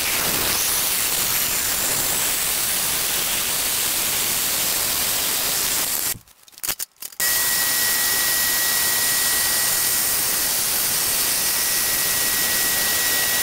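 Metal-cutting bandsaws cutting a steel exhaust mandrel bend: a steady hiss of the blade through the tube, broken off briefly about six seconds in, then running on with a steady high-pitched tone over the cutting hiss.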